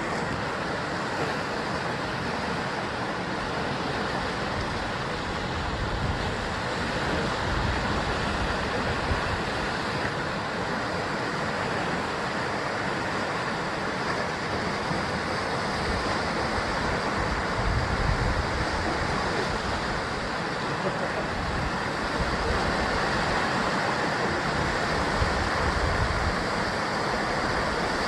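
Ocean waves washing against a rocky shore of basalt columns: a continuous surf, swelling and easing gently, with some wind rumble on the microphone.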